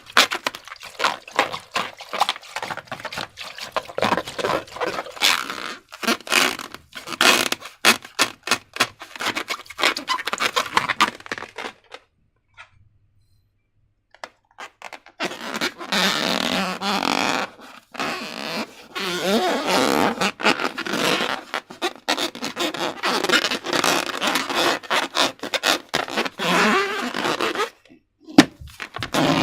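Slime being handled and squished by hand: wet squelching and sticky crackling clicks, with a pause of about three seconds midway.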